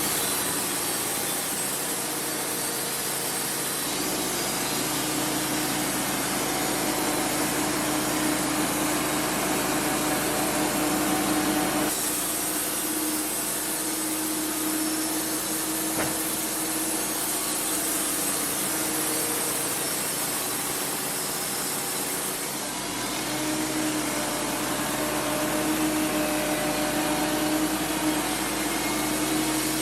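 Wood-Mizer LT35 portable band sawmill running and sawing through a cedar log, a steady blade-and-engine noise with shifts in tone about 4, 12 and 23 seconds in.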